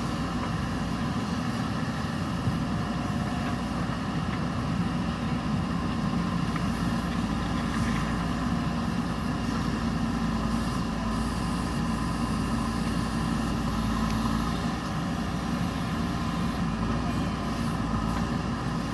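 Diesel engine of a JCB backhoe loader running steadily.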